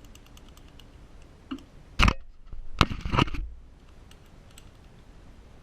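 Faint clicking of a Master Lock 1534D letter-combination padlock's dials being turned, then a loud clack about two seconds in and a short clatter of knocks a second later as the cut lock and tools are handled.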